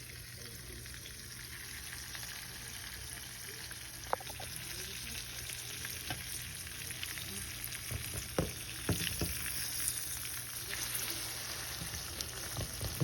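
Flour-and-breadcrumb-coated pork chops sizzling steadily in hot oil in a skillet. A few sharp knocks sound about four seconds in and again around eight to nine seconds in.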